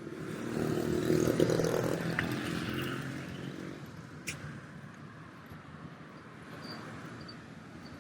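A motor vehicle passing close by on the street: its engine note swells over the first second or two, then fades away. A single sharp click follows about four seconds in.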